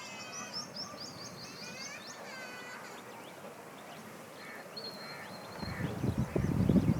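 Small birds chirping in rapid high series with quick falling notes, and a brief thin whistle midway. From about five and a half seconds in, a loud low rumble comes in under the birdsong.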